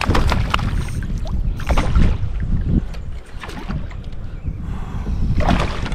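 Wind buffeting the microphone, with scattered clicks and knocks while a hooked bass is reeled in to a kayak.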